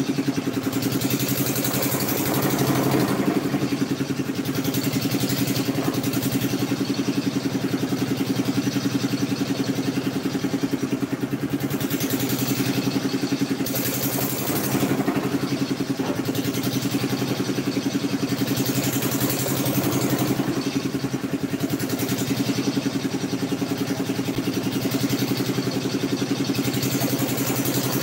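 Small walk-behind double-drum road roller's engine running at a steady idle.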